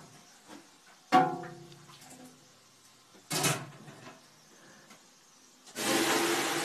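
Water thrown onto the hot stones of a sauna stove. There is a short ringing knock about a second in and a brief splash a little after three seconds, then a loud steady hiss of steam from near the end.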